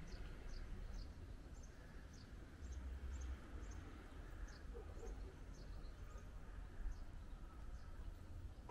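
Small birds chirping over and over in short, high, falling notes, about two or three a second, over a low steady rumble.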